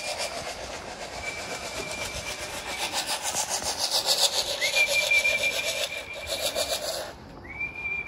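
Racing pigeons being called down: a fast, even rasping rattle that cuts off suddenly about seven seconds in, with a high whistle held for a second or more, sounding three times.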